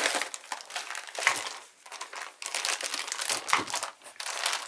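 Packaging crinkling and rustling in irregular bursts as it is handled during unboxing.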